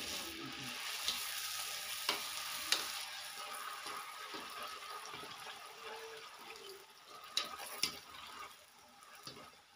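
Golgappa puris deep-frying in hot oil in an iron kadhai: a steady sizzling hiss that dies down toward the end. A few sharp clicks of the metal skimmer against the pan.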